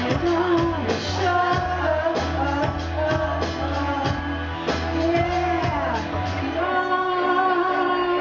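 A woman singing into a microphone over amplified backing music with a bass line and a steady beat; the bass drops out about six and a half seconds in while the sung notes carry on.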